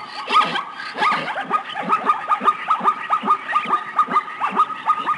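Plains zebra barking call: a rapid run of short, yelping barks, each falling in pitch, about five a second.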